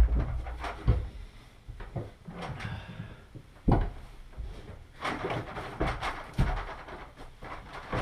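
A few separate dull knocks with rustling and handling noise in between: hands-on work on a shower pan installation.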